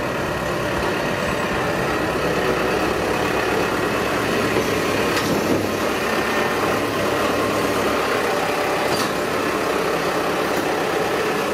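Compact tractor's engine running steadily while its front-end loader bucket pushes into a pile of hay and manure.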